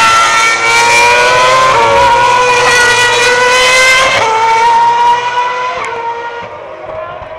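A 2010 Renault Formula One car's 2.4-litre V8 at high revs as it passes. The engine note breaks sharply at gear changes about two and four seconds in, then fades as the car moves away.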